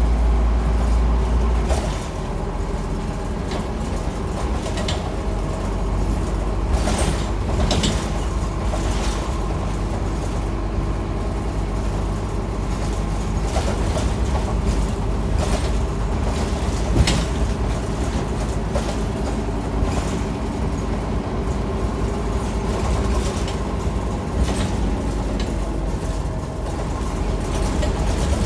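Scania NewOmnicity city bus heard from inside the passenger cabin while driving: a steady engine and road rumble with several short knocks, the loudest a little past halfway through.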